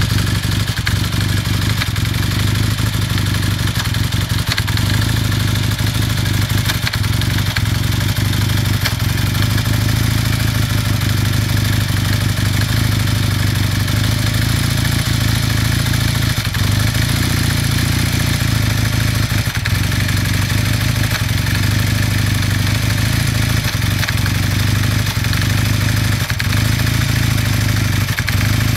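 1981 Kawasaki KZ440 parallel-twin engine running steadily at idle while warming up, with a knocking noise in it.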